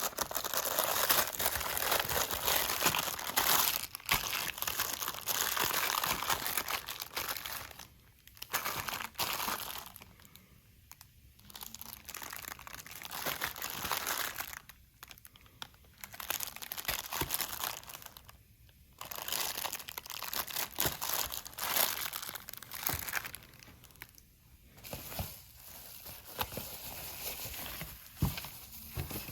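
Packaging material being handled and crumpled while a monitor is unboxed, in bursts several seconds long with short pauses between them.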